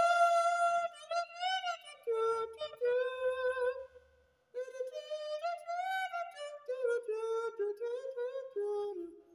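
A ventriloquist singing unaccompanied in a high-pitched puppet voice, in two sung phrases with a short break about four seconds in.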